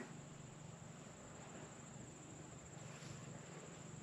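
Quiet outdoor ambience: a steady high-pitched chirring of crickets, with one faint click at the very start.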